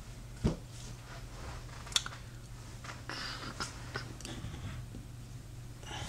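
Comic books being handled and moved about on a wooden desk: a few soft knocks and clicks, with a brief rustle about three seconds in, over a steady low hum.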